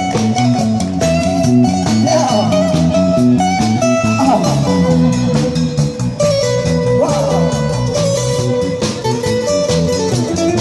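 A busking band playing amplified blues-rock: an electric guitar lead with held notes and string bends over a stepping bass-guitar line.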